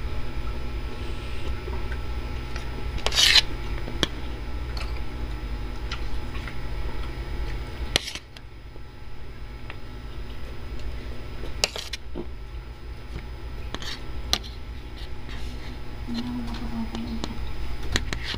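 A spoon and fork scraping and clinking against a plate while eating, in short scrapes, the loudest about three seconds in, over a steady low hum.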